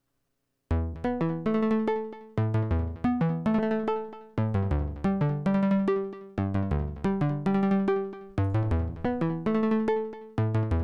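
Modular software synthesizer playing a sequenced melody of short, sharply struck notes that fade quickly, several a second, its pitches quantized to a scale by the Septitone quantizer. It starts about a second in and repeats a phrase about every two seconds.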